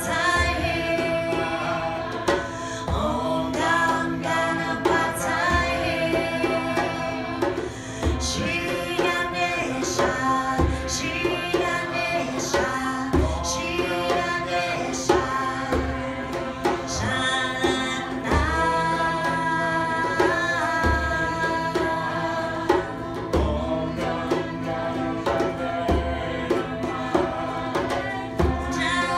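Live devotional music: a woman singing with ukulele, over a harmonium drone and hand-struck frame drum beats recurring every couple of seconds.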